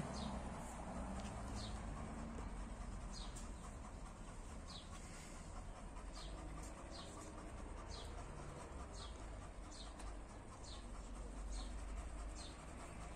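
A small bird chirping repeatedly, one short high note falling in pitch about once a second, over a low steady background rumble.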